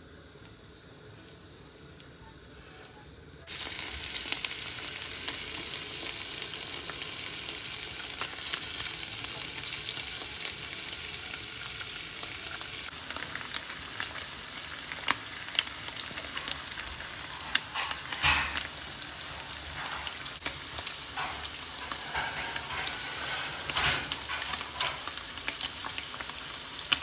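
Strips of boiled spleen frying in melted pork lard in a pan: a dense steady sizzle with scattered sharp pops and crackles. It comes in abruptly about three and a half seconds in, after a faint, quiet start.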